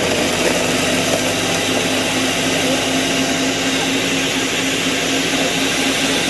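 Electric blender motor running steadily at full speed, grinding dry Golden Oreo cookies into crumbs, with a constant hum under a loud rushing whir.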